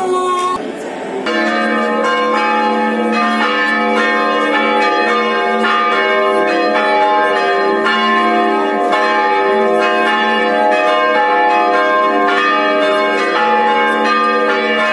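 Church bells ringing: several bells struck over and over in a continuous, overlapping peal that starts about a second in.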